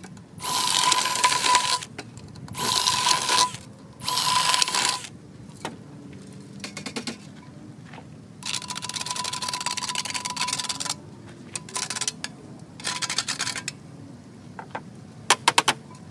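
Cordless drill boring 3/4-inch vent holes through the steel wall of a #10 can, running in short bursts of about a second each, four in quick succession, then a longer run of a couple of seconds and one more short burst. Near the end comes a quick run of sharp metallic clicks.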